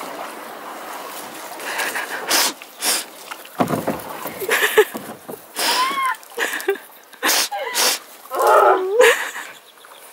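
Canoe paddle strokes splashing as the canoe pushes through reeds, the stalks brushing along the hull in short, sudden swishes. A few short vocal sounds are heard, the longest near the end.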